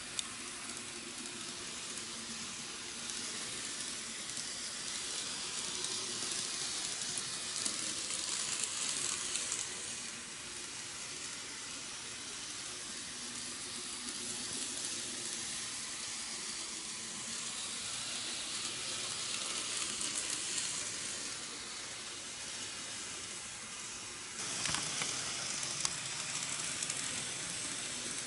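N-gauge model train running on KATO Unitrack track: a steady hiss from the wheels on the rails and the small motor, swelling and easing as the train goes round the loops, with a few brief clicks.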